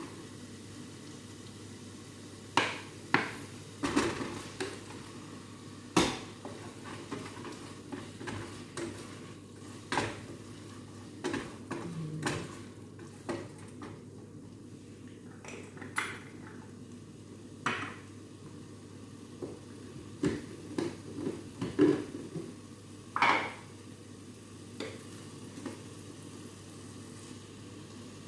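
Wooden spoon stirring sauce in a stainless steel saucepan, with irregular knocks and scrapes of the spoon against the pot.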